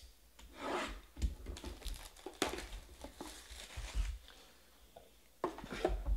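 A sealed trading card box being unwrapped and handled: plastic wrap crinkling and tearing, cardboard scraping as the inner box slides out of its sleeve, with a few soft knocks.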